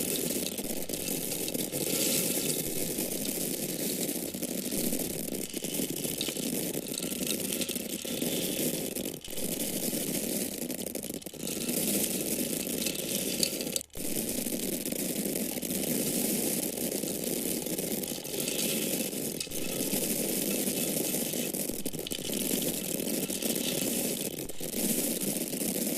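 Dry corn kernels falling in a steady, continuous stream: a dense rattling patter of many small hard grains. It breaks off for an instant about halfway through.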